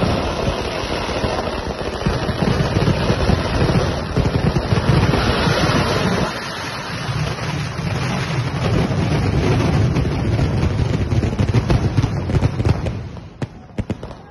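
Fireworks going off in a dense barrage, a continuous rapid crackle of bursts and bangs, easing briefly about six seconds in. Near the end it thins to a few separate bangs and dies away.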